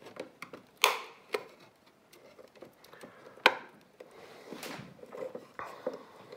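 Metal pry picks scraping and levering at the seam of a Xiaomi Mijia soap dispenser's plastic cover, with a few sharp clicks as its snap clips pop loose, the loudest about three and a half seconds in.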